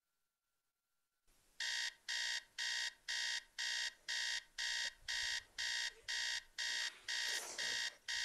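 Electronic alarm clock beeping: a steady run of identical short, high beeps, about two and a half a second, starting after a second or so of dead silence.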